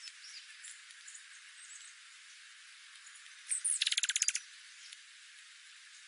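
Small songbirds calling over a faint steady hiss. Thin high chip notes come in the first couple of seconds, then a loud, rapid rattling trill of about a dozen notes lasting under a second, a little past halfway.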